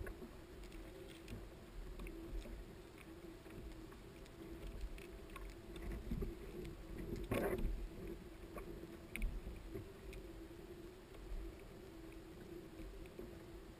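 Small knocks and handling sounds on a kayak as a caught giant trevally is held and worked on, with one louder knock about seven seconds in, over a steady low rumble of water and wind against the boat.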